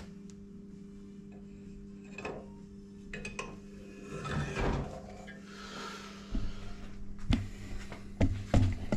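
Scattered clunks and knocks of a Volvo Penta cylinder head being turned round by hand and set back onto a steel head stand, over a steady low hum.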